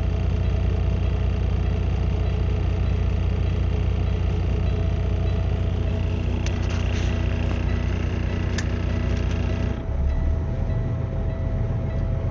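Semi truck's diesel engine idling, heard from inside the cab, while its air compressor pumps up the brake air system. About ten seconds in, the compressor's steady note cuts off suddenly as the air pressure reaches the governor's cut-out point and pops off.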